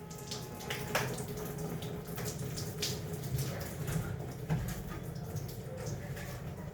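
Cooling water from a wet concrete core drill trickling and dripping, with many small scattered clicks and ticks.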